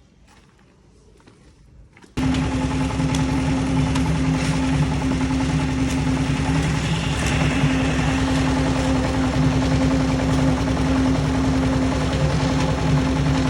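Engine of a construction machine running steadily with a fast, even low throb, cutting in abruptly about two seconds in after faint hiss.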